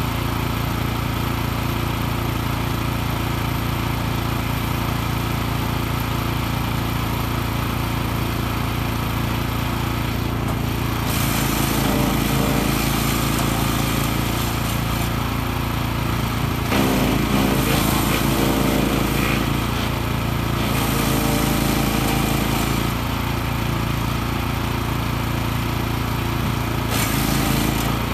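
Wood chipper's 14-hp engine running steadily at working speed. From about eleven seconds in, the sound gets louder in stretches and its note shifts.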